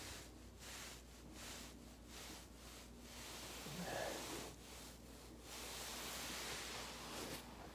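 Body rolling back and forth on a foam roller: a faint, soft swishing that swells and fades about once or twice a second. A short low pitched sound, a grunt or squeak, comes near the middle.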